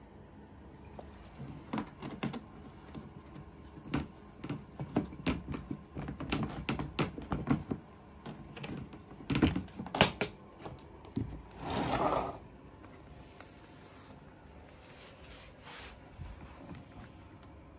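Plastic pet carrier being handled: a run of irregular clicks and knocks as its latch and door are worked, then a brief rushing noise a little past the middle.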